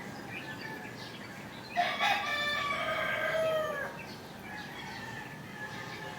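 A rooster crows once, a drawn-out call of about two seconds that starts a little under two seconds in, with small birds chirping faintly around it.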